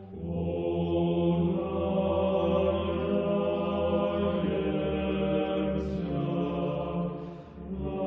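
Slow Orthodox liturgical chant: voices hold long notes over a steady low note, with a short break between phrases near the end.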